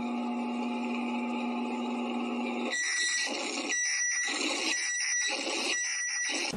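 Synthesized emergency-alert audio: a steady low electronic drone, then, under three seconds in, four short harsh beeping bursts about a second apart, each with a high tone.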